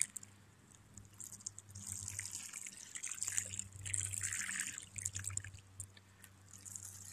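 Water from a plastic watering can's rose sprinkling onto soaked soil in small plastic pots, in spells that stop and start as the can moves between pots.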